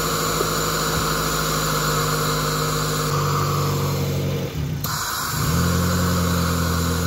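Suzuki Swift petrol engine idling with its air filter removed and the throttle body open to the air. The idle note dips and shifts briefly about four and a half seconds in, then settles. The owner takes the unsteady idle and heavy sound for a dirty throttle body.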